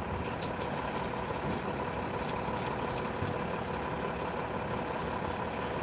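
Steady street traffic and an idling car heard from inside the car's cabin while it waits at an intersection, with a few faint ticks.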